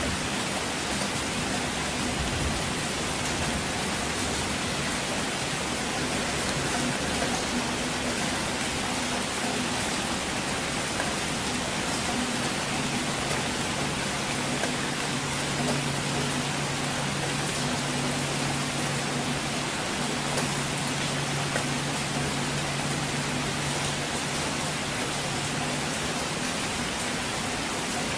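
Steady rain, an even hiss with no let-up.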